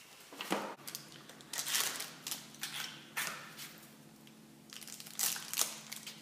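Small cardboard boxes being opened and the new ball bearings' plastic wrappers crinkled as they are unwrapped: a run of short crackling rustles with a lull in the middle.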